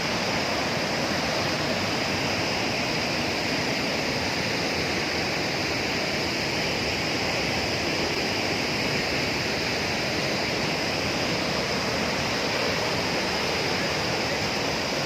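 A waterfall's steady rush of falling water, with no change in level.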